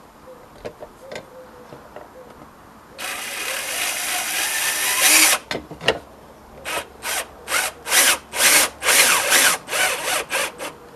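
Power drill driving screws in: the motor runs steadily for about two seconds, then goes in about nine short trigger bursts as the screw is driven home. A few faint clicks come first.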